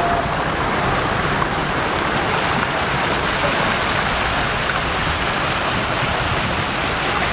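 Many jets of a large public fountain spraying and splashing down into its basin: a steady rush of falling water.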